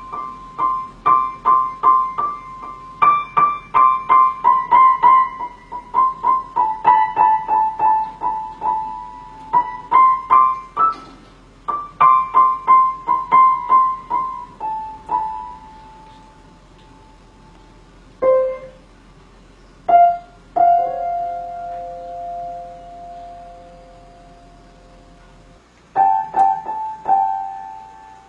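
Piano notes struck one at a time in the upper-middle register, a few a second, with many repeated notes. In the middle they thin out to a few long held notes, and quick notes return near the end.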